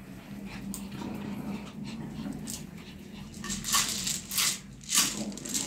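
Small dogs whining softly. From about three and a half seconds in come several loud, short crinkles of a packet being handled: the rustle the dogs know as the signal for treats.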